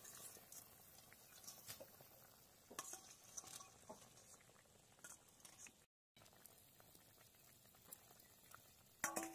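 Faint, scattered clinks and scrapes of a steel spatula on a perforated steel strainer as fried mutton pieces are pushed off into a pan of curry.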